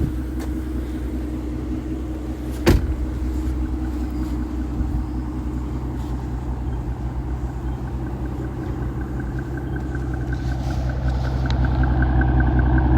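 Mercedes-AMG S65's twin-turbo V12 idling, heard through its exhaust, with one sharp click about three seconds in. The engine grows louder toward the end.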